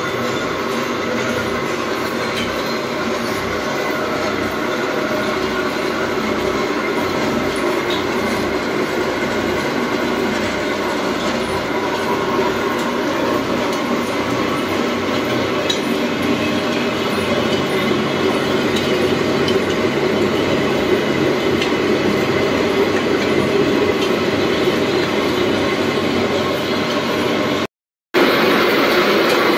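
Electric-motor-driven organic fertilizer granulating machinery running: a steady mechanical drone with a rattling clatter. It breaks off for a moment near the end.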